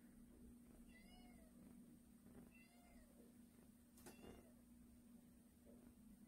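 A cat meowing faintly: two rising-and-falling meows, about a second and about three seconds in, with a sharp click about four seconds in over a faint steady hum.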